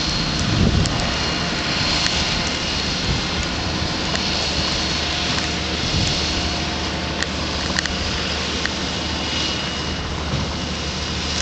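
Steady engine and road noise from a running vehicle, with a low hum underneath and a few faint sharp clicks about six to eight seconds in.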